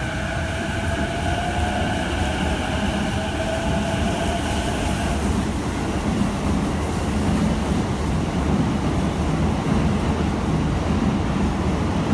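Electric commuter train on the move: a motor whine of several steady tones, one slowly rising, fades about five seconds in, leaving a steady low rumble of the train running on the rails.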